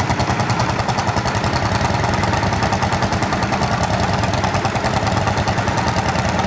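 Single-cylinder hot-bulb two-stroke engines of Lanz Bulldog tractors running, a fast, even beat of exhaust pulses that holds steady throughout.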